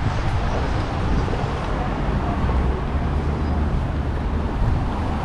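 City street traffic noise: a steady wash of passing vehicles with a deep, continuous low rumble.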